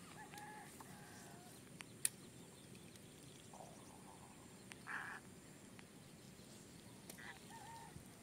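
Quiet outdoor ambience with faint short bird calls near the start and again near the end. A single sharp click comes about two seconds in.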